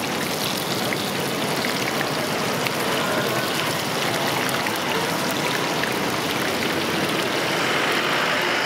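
Batter-coated green chillies (mirchi bajji) deep-frying in a wide wok of hot oil: a steady sizzle with small scattered pops.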